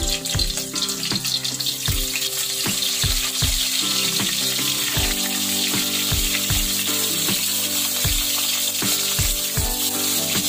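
Dried rabbitfish (danggit) sizzling steadily in hot oil in a wok as more pieces are added.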